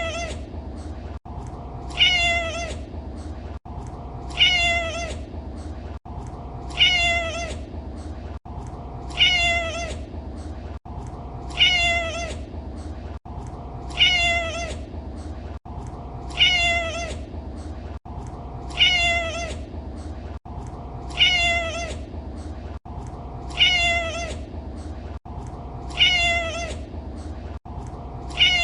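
A domestic cat's meow, the same short call repeated about every two and a half seconds: a looped recording. A steady low hum runs underneath.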